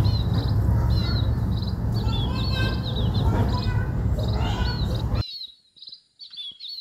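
Small hand trowel scraping and patting loose soil as it is levelled, with a bird chirping again and again in the background. The scraping stops abruptly about five seconds in, leaving only the chirps.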